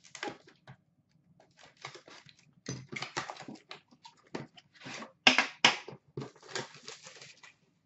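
A hockey card box being unpacked: irregular rustling and scraping of packaging, with light knocks and clacks as the box and its metal tin are handled. The sharpest clack comes about five seconds in.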